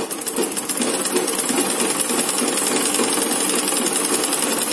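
Black domestic sewing machine stitching cotton fabric, a rapid, even mechanical clatter that keeps a steady pace throughout.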